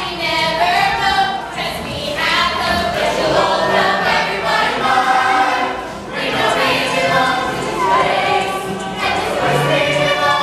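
A group of voices singing together in chorus, a stage song with music, in continuous phrases.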